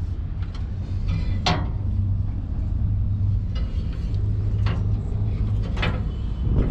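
Diesel engine of a 2004 Vögele 2116T tracked asphalt paver running with a steady low rumble. A few sharp metallic knocks sound over it, about a second and a half in, twice near the fifth and sixth seconds, and at the end.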